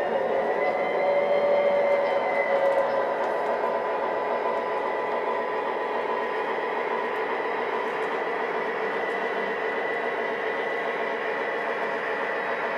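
O-gauge model train running on three-rail track: a steady rumble of metal wheels on the rails under a motor whine that rises a little at the start and then holds steady. It is loudest in the first few seconds.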